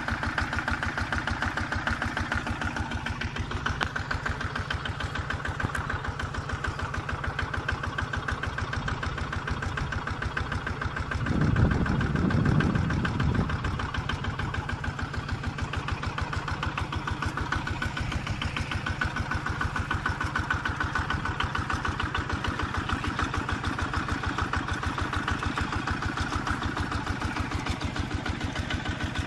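Single-cylinder diesel engine of a homemade mini tractor running steadily with a fast, even chugging beat, with a brief louder low rumble about eleven seconds in.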